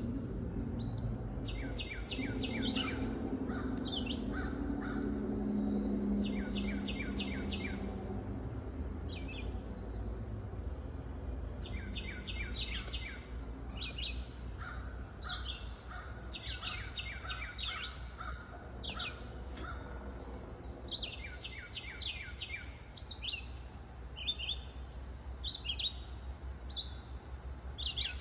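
Small songbirds singing: short, high, falling whistled notes, often in quick runs of several, repeated throughout. The uploader is unsure whether they are a chickadee or a tufted titmouse. A low hum sits underneath, strongest in the first third.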